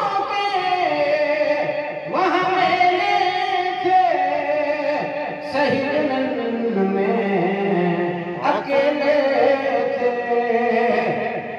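A man chanting a devotional verse into a microphone in long, drawn-out melodic phrases with held, wavering notes. A new phrase starts about every three seconds.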